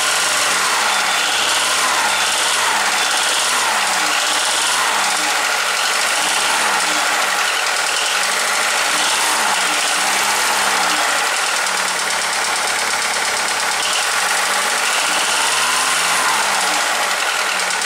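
Volkswagen-group 1.4 16V petrol engine running with a steady knocking clatter: piston slap from badly worn pistons.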